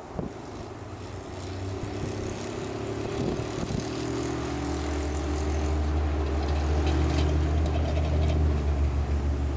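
An engine running with a low, steady hum that grows louder over the first few seconds, then holds.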